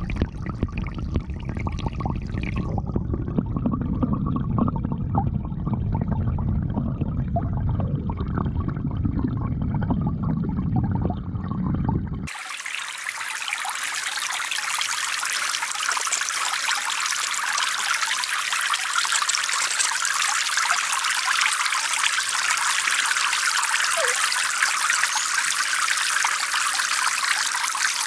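For about the first twelve seconds, a dull, low water noise as heard with the microphone underwater. It then cuts suddenly to a steady bright trickling and splashing: many thin jets of water falling from pipe spouts in a concrete pond wall into the pond.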